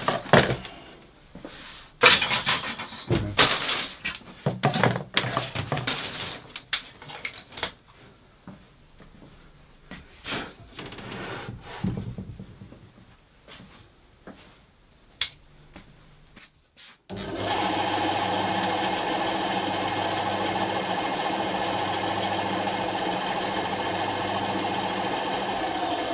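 Knocks and clatter of parts and tools being handled on a workbench. About seventeen seconds in, a Titan benchtop bandsaw is switched on and runs with a steady motor hum, on a test run after fitting a new blade. At the very end its pitch begins to fall as it runs down.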